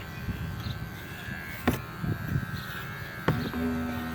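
Electric dog hair clippers running with a steady buzzing hum as they shave through thick fur, with two sharp clicks; about three and a half seconds in a stronger, steadier hum sets in.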